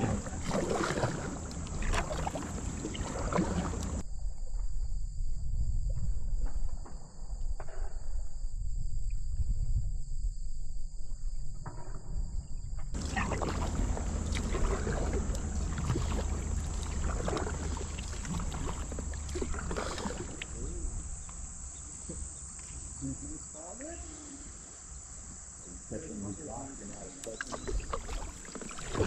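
Kayak paddling on a river: running water and irregular paddle splashes, with a steady high insect buzz behind them. The buzz drops out for about nine seconds starting about four seconds in.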